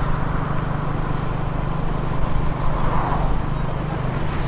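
Steady hum of a motorcycle engine with road and wind noise, heard from on the bike in traffic, as other motorbikes and a car pass close by. A passing vehicle swells briefly about three seconds in.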